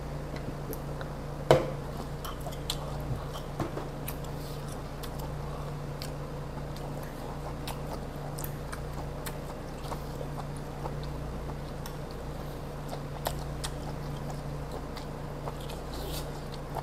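A person chewing and biting boiled pig stomach close to a clip-on microphone, with small clicks of chopsticks on dishes and one sharper knock about a second and a half in, over a steady low hum.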